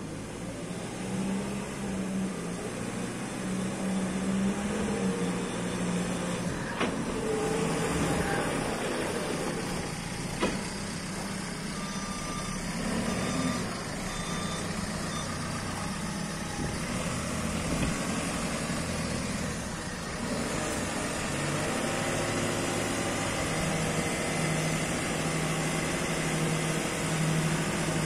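JCB 535-140 telehandler's diesel engine running, its speed rising and falling as the machine drives and manoeuvres, with a reversing alarm beeping briefly around the middle. In the last part the engine holds a steadier, higher note while the hydraulics put out the stabilisers and raise the boom.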